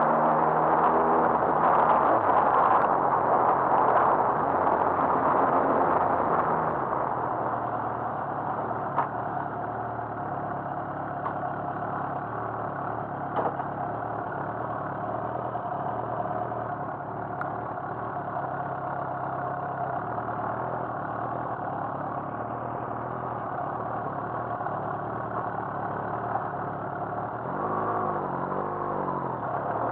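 Motorcycle engine heard from the bike itself, its note dropping as it slows over the first several seconds, then running steadily at low speed before the revs pick up again near the end.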